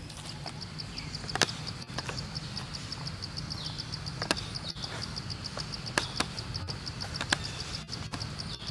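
An insect calling with a high-pitched, rapid, even pulsing chirp that runs on without a break, over a low steady background rumble, with a few sharp clicks scattered through.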